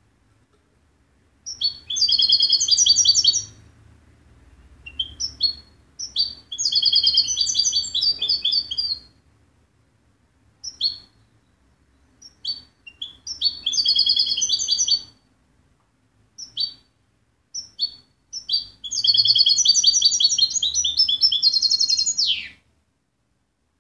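European goldfinch singing: four long bursts of rapid, high twittering song with short single call notes between them. The last and longest burst ends in a falling note.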